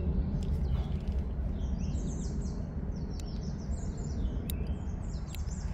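A songbird sings a run of quick, high, repeated chirps, starting about two seconds in. Under it runs a steady low outdoor background rumble.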